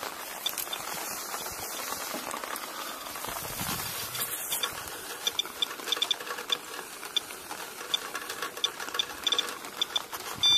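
Handheld SOEKS radiation detector clicking as it counts radioactivity in rainwater from a downspout, with rain falling underneath. The clicks start about halfway through and quicken, and right at the end a steady alarm beep begins as the reading climbs to a dangerous level.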